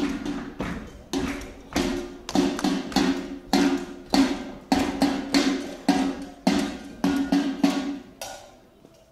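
Music with a steady knocking, wood-block-like percussion beat, about two strikes a second, each with a short pitched ring; it fades out near the end.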